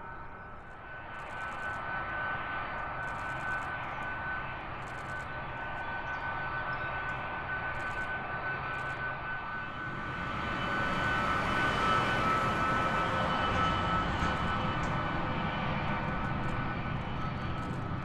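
Aircraft engines with a steady high whine over a rumble, growing louder about ten seconds in.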